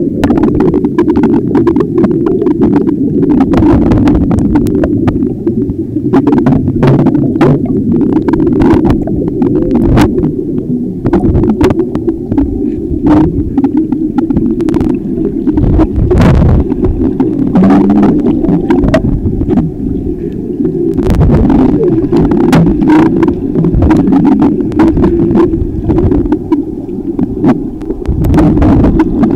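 Muffled underwater noise picked up by a camera held under water: a loud, continuous low rumble of moving water, with many irregular sharp clicks and knocks.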